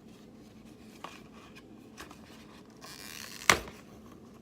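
Small cosmetic samples and their packaging being handled: a few faint clicks, a brief rustle, then one sharp knock about three and a half seconds in as an item is set down.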